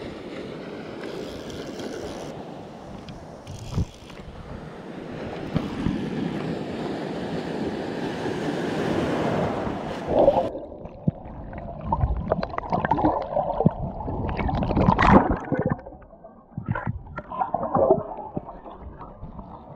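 Water rushing and sloshing around a phone held at the water's surface. About halfway through, the sound suddenly turns muffled as the phone goes under, with irregular gurgling, bubbling and knocking from the submerged phone.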